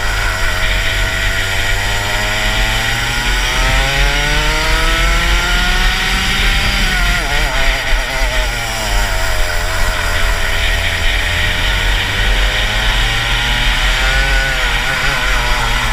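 Rotax Max 125cc single-cylinder two-stroke kart engine under power, geared long with 72/12 sprockets. Its revs climb steadily for about six seconds, fall away over the next two, then climb again, with a short dip near the end.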